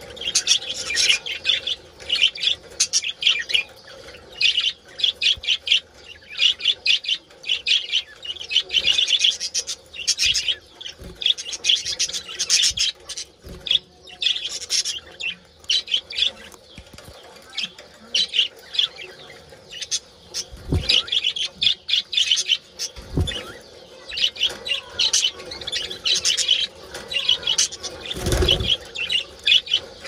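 A colony of budgerigars chattering in rapid, high chirps and warbles: the mating calls of the flock. A few dull thumps come in the second half.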